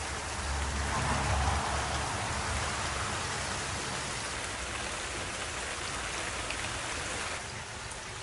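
Steady rain falling on a garden, an even patter and hiss, with a low rumble swelling briefly about a second in.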